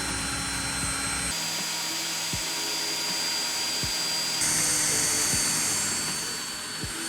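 Power drill running steadily as it bores a hole through a car's sheet-metal boot lid, its whine shifting abruptly about a second in and again past halfway.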